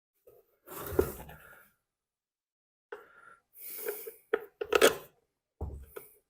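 A series of short knocks, scrapes and rattles from a leaf blower's housing and parts being handled during reassembly. They come in about six separate bursts, the sharpest a little before five seconds in.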